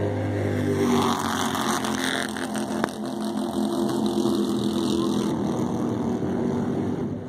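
Bandolero race cars' small 570cc Briggs & Stratton engines running on the track, a steady mix of several engine tones. Wind buffets the microphone from about one to five seconds in.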